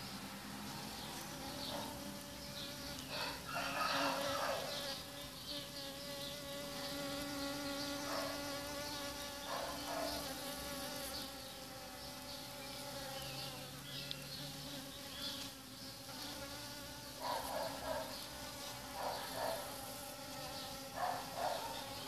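Honeybees buzzing steadily at the flower, a low hum with several brief louder swells as bees fly close past.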